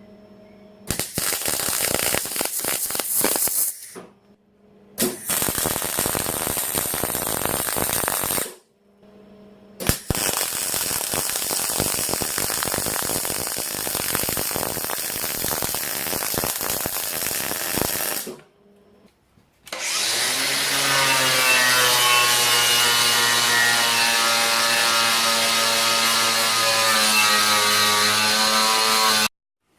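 Electric welding of a steel blanking plug into a cut motorcycle frame tube, in three crackling bursts of a few seconds each, with a faint steady hum in the pauses. Then a power tool, likely an angle grinder cleaning up the weld, spins up in pitch and runs steadily for about ten seconds before cutting off.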